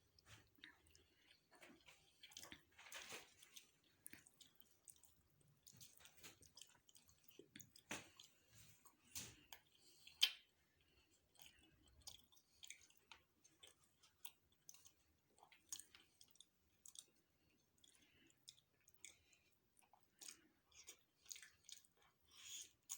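Faint, close-miked chewing and wet mouth sounds of a person eating: irregular soft smacks and clicks, with one sharper click about ten seconds in.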